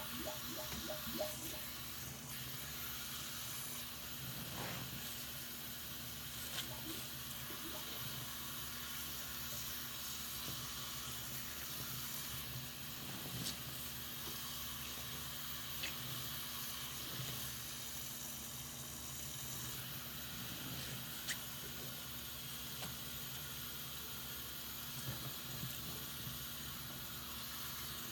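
A soapy sponge squeezed and squished in a sink of foamy water under a running faucet: a steady watery hiss with a few small clicks.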